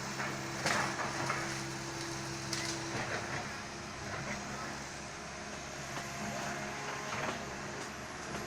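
Komatsu excavator's diesel engine running steadily, with scattered cracks and rustles over it, the loudest about a second in.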